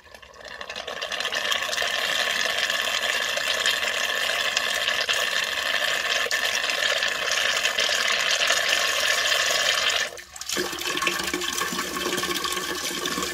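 A thin stream of water from a water-purifier filter's outlet tube pouring into a stainless steel pot. It builds up over the first second or so, then runs steadily, with a brief dip about ten seconds in. A newly fitted filter is being flushed so that its dust and carbon powder wash out.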